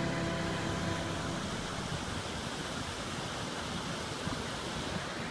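Steady rushing of a mountain river flowing over boulders, with the last notes of a song fading out about a second in.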